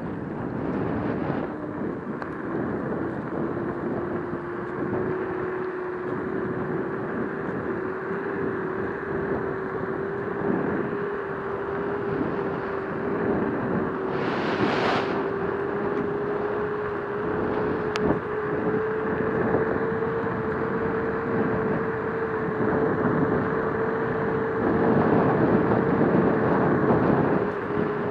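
Scooter motor whining steadily under way, its pitch slowly climbing as speed builds and then levelling off, over wind and tyre noise. There is a short hiss of wind about halfway through.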